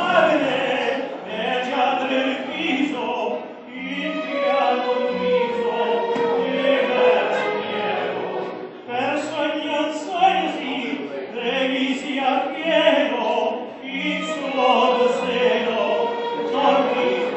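A man and a woman singing a duet in an operatic, musical-theatre style, with long held notes over an instrumental backing track played through the PA.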